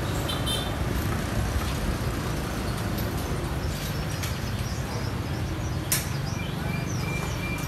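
Steady low rumble of passing street traffic, with one sharp click about six seconds in.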